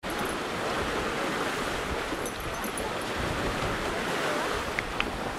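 Steady rushing outdoor noise of wind on the microphone and water along a river shore, with two brief high chirps near the end.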